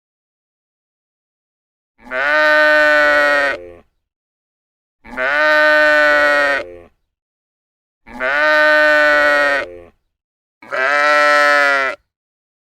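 Sheep bleating: four long bleats, each about one and a half to two seconds, coming about every three seconds with silence between.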